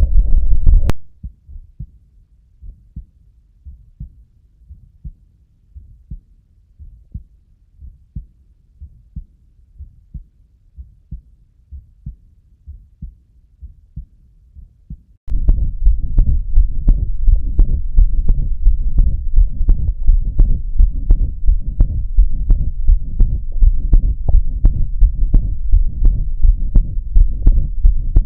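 Human heart sounds recorded with a Stethophone digital stethoscope. First comes a stretch of faint, regular heartbeats; about halfway through a much louder recording begins, with a continuous low rumbling murmur around the beats, an example of a pathological diastolic murmur.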